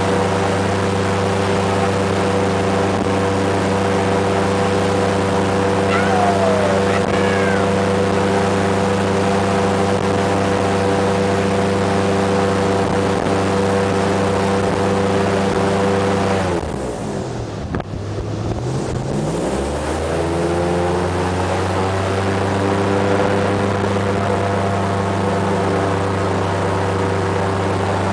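Airboat engine and propeller running at a steady cruising speed, throttled back about sixteen seconds in so the pitch drops sharply, then revved back up to the same steady speed a few seconds later.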